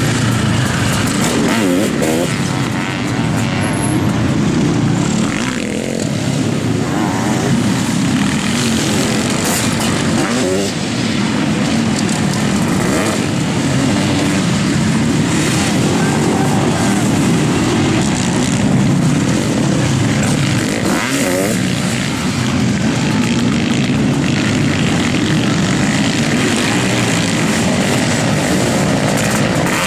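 Sidecar motocross outfits' engines running hard, revving up and down through the whole stretch as the outfits race around the dirt track.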